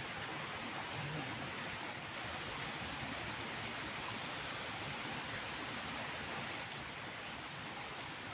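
Steady rushing hiss of running water, dipping a little in level near the end.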